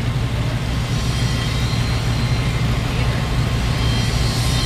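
Large engine running steadily at idle, a constant low drone.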